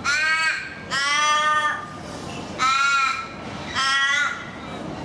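Australian raven calling: four drawn-out caws about a second apart, the second one the longest.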